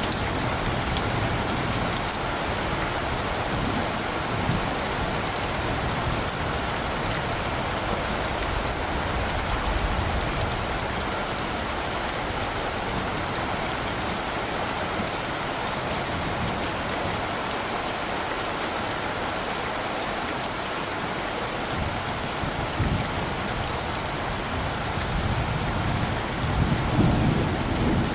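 Steady heavy rain hiss, dense with fine pattering drops, and a low rumble of distant thunder swelling near the end.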